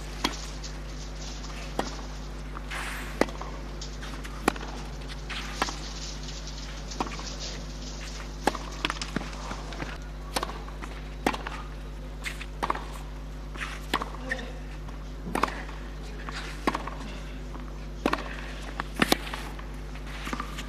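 Tennis rally on a clay court: the ball is struck back and forth by rackets, giving sharp hits about every second or so, with fainter ball bounces between them. A steady low hum runs underneath.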